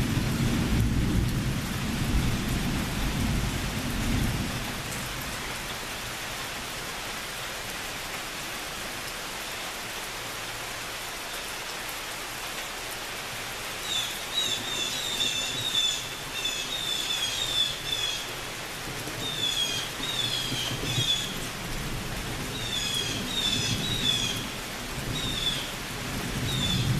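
Steady rain with a low rumble of thunder that fades out over the first four seconds or so. About halfway through, high chirping calls start and repeat in short runs over the rain. A new thunder rumble starts right at the end.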